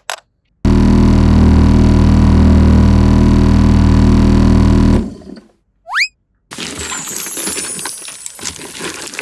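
A string of added sound effects. A loud steady low hum lasts about four seconds, then a short rising whistle sounds, then a crackling, glittering noise fades away.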